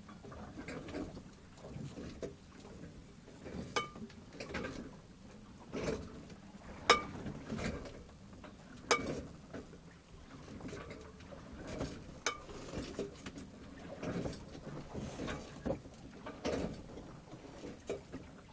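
A boat knocking and sloshing in choppy water: an uneven wash of water against the hull, broken by irregular sharp metallic knocks, a few of which ring briefly. The loudest knock comes about seven seconds in.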